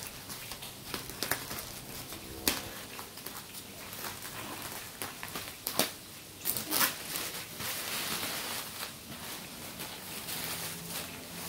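Black plastic wrapping crinkling and rustling as it is cut with scissors and pulled off a cardboard box, with several sharp snips and rips, the loudest about halfway through.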